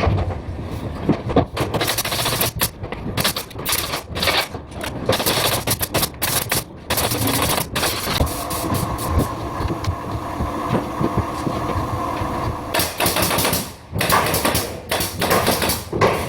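Interior carpentry work: a rapid, irregular series of sharp knocks and shots from fastening tools, with a steadier stretch in the middle carrying a low machine hum.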